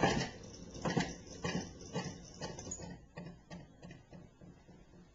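Wooden clockwork mechanism of a hand-built Easter clock: a heavy wooden knock as the round wooden stone rolls aside and stops, then a run of wooden clacks about two a second that fade away while the figure rises into the opening.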